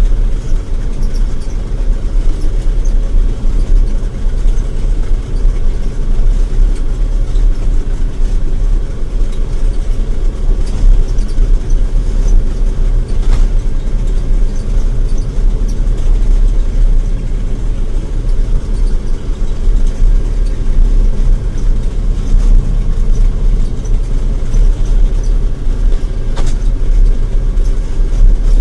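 John Deere 9700 combine's diesel engine and threshing machinery running steadily while it cuts wheat: a constant low drone with no changes.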